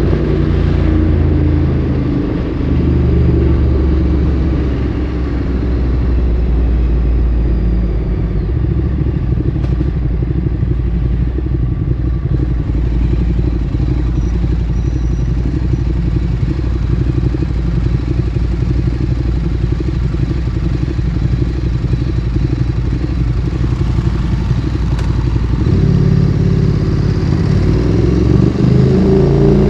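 Ducati Streetfighter 848's V-twin engine through a Termignoni exhaust, easing off at the start and then idling steadily for most of the time. Near the end it revs up and pulls away, the pitch rising through the gears.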